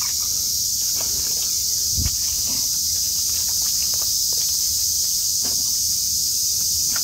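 Steady high-pitched insect chorus, with scattered soft footsteps and small knocks from a person walking on a muddy bank with a cast net, and a dull thump about two seconds in.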